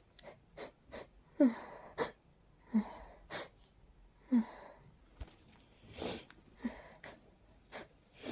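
A person in a sneezing fit from allergies and a cold: a string of short, sharp sneezes with wheezy, catching breaths between, about one a second.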